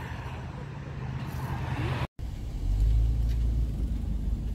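Steady low rumble of a car driving, heard from inside the cabin. It follows a short break in the sound about halfway through; before the break there is a fainter low hum with outdoor noise.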